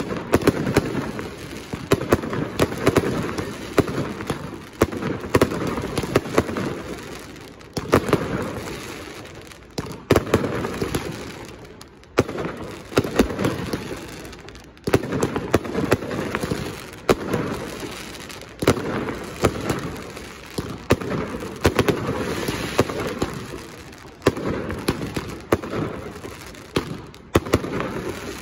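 Aerial firework shells bursting in quick succession, a sharp bang every second or two, each trailing off in a dense run of smaller crackling pops and echo.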